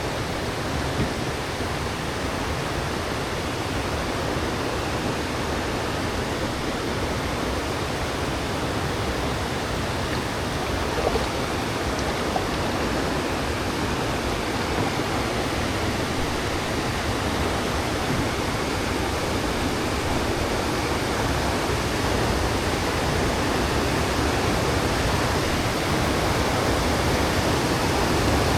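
Steady rush of water pouring over a river weir, growing a little louder near the end.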